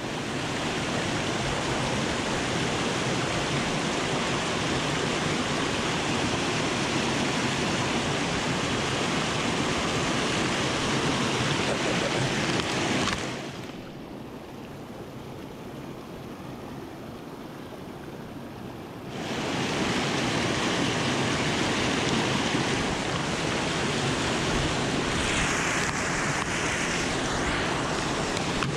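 Rushing creek water, a steady hiss of water tumbling over rocks. About halfway through it turns quieter and duller for several seconds, then comes back at full strength.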